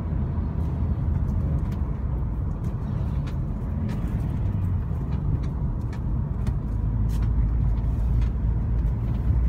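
Car's engine and tyre noise heard from inside the cabin while driving on a paved road: a steady low rumble.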